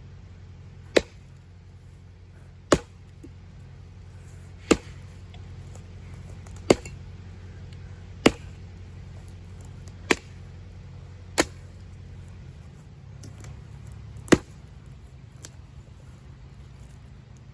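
Axe chopping into pine branches: eight sharp, loud strikes at an uneven pace of about one every one and a half to two seconds.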